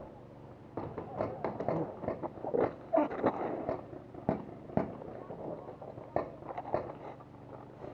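Paintball markers firing: a quick, irregular series of sharp pops.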